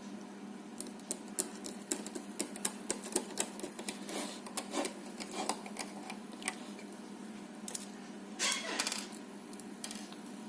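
Small plastic parts of a handheld radio microphone clicking and scraping as the casing is handled and fitted back together: a run of sharp clicks, then a longer scrape near the end. A steady low hum runs underneath.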